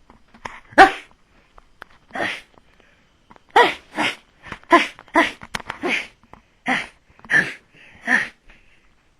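A person imitating a dog barking with their voice: about a dozen short barks, spaced irregularly, with a quicker run of barks in the middle.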